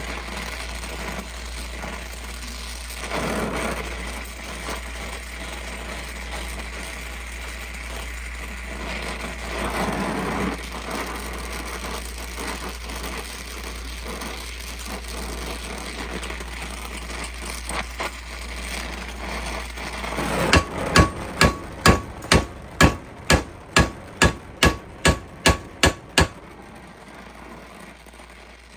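Gas torch flame hissing steadily as it heats a steel rifle bolt handle, then, about twenty seconds in, a quick series of about fourteen hammer blows on metal, roughly two a second, each with a short ring.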